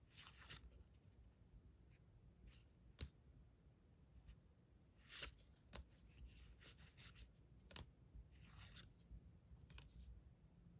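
Faint handling of Yu-Gi-Oh trading cards: soft swishes of cards sliding over one another as they are flipped through, with a few light clicks of card edges.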